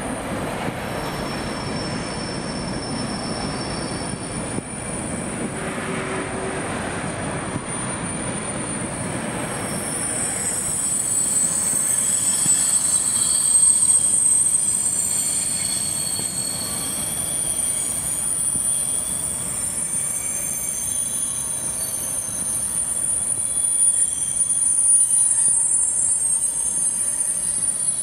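A freight train of tank wagons passes close by behind its locomotive, with a steady running noise at first. From about ten seconds in, the wagon wheels squeal in several high, held tones, louder at times.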